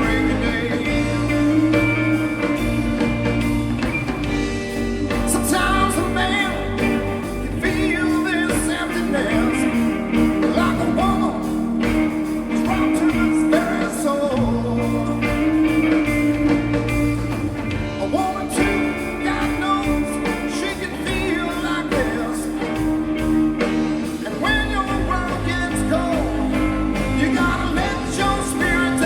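A live blues-rock band playing a long stretch with no vocals, electric guitar carrying bending melodic lines over a steady bass.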